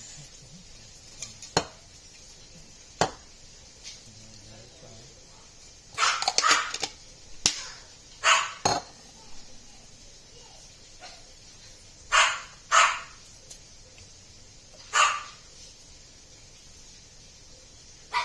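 A dog barking several times, mostly short barks in pairs, with a few sharp clicks or knocks in between.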